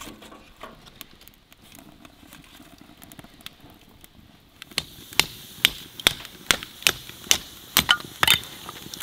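Faint crackling of leaves and kindling catching in a small wood stove. About halfway in, a steady run of about nine sharp chops, two a second, begins: a Gränsfors axe splitting firewood into kindling.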